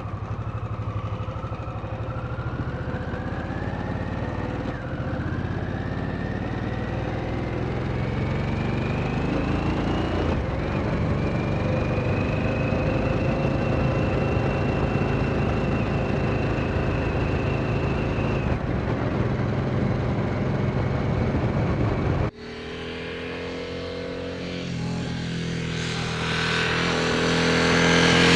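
Harley-Davidson Sportster S's 1250 cc water-cooled 60-degree V-twin (Revolution Max 1250T) with high-mount exhaust, heard from the rider's seat pulling away and accelerating through the gears: the pitch climbs, drops at each upshift, then holds steady at cruising speed. Near the end, heard from the roadside, the bike comes through a curve and its exhaust grows louder as it approaches.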